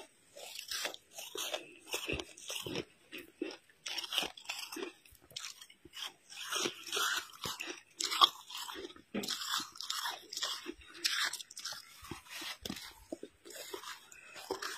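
Fresh snow being bitten and chewed close to the microphone: a steady run of crisp crunches, about two or three a second.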